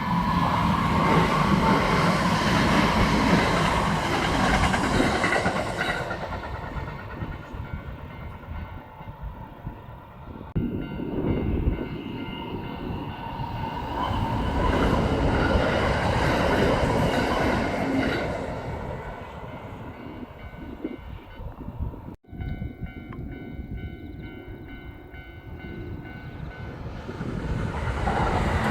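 Kintetsu electric train passing close by, its running noise swelling and fading, with wheels clacking over rail joints. The sound breaks off abruptly about 22 seconds in and a passing train picks up again.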